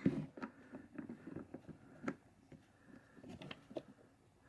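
Irregular small clicks and taps of a glovebox lock cylinder being handled and fitted into its handle, with one sharper click about two seconds in and a quick run of clicks near the end.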